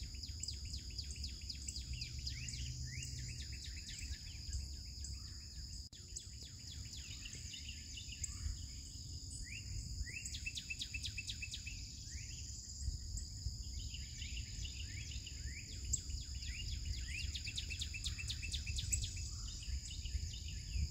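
Riverside dawn chorus: several birds singing short repeated phrases and trills over a steady high-pitched insect drone, with a low background rumble.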